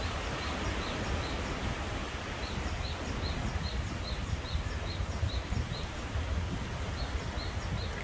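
Wind in the forest canopy, with leaves rustling and a low rumble of wind on the microphone. Over it a bird repeats a short high note two or three times a second, in runs.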